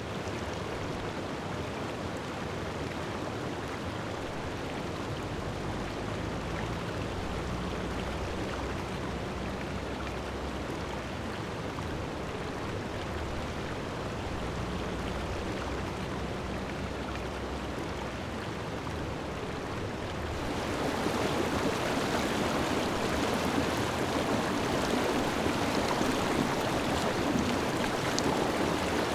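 Steady rush of flowing water, as from a forest stream, growing louder about twenty seconds in.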